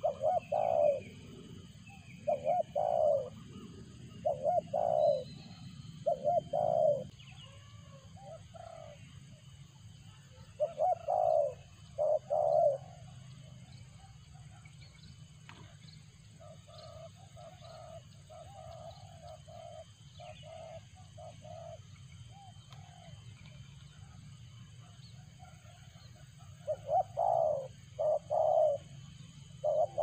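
Spotted doves (tekukur) cooing: short repeated cooing phrases in groups, with a quieter run in the middle and a louder group near the end.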